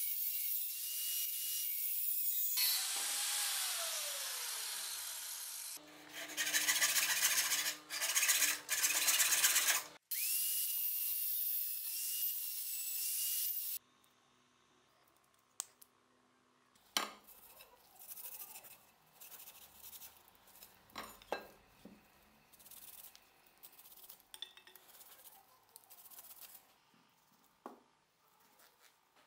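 A high-speed electric power tool whines up to speed and runs with a harsh hiss against the workpiece, winds down about three seconds in, runs again in short bursts, and stops abruptly near fourteen seconds. After that come light clicks, taps and rubbing from small parts being handled on the bench.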